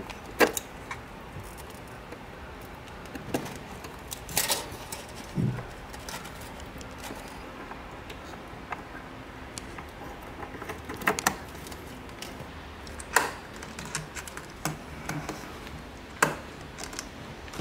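Scattered small plastic-and-metal clicks and taps as SO-DIMM RAM modules are pushed into the 2020 27-inch iMac's memory slots and the memory bay cover is pressed shut. There are about half a dozen sharp clicks a few seconds apart. The modules are not fully seated, so the cover will not close.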